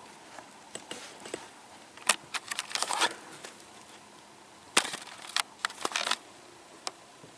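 Scattered sharp knocks and clicks with soft rustling between them: handling noise from a kayak, hand and paddle moving through water weeds. The knocks come in two clusters, about two to three seconds in and again about five to six seconds in.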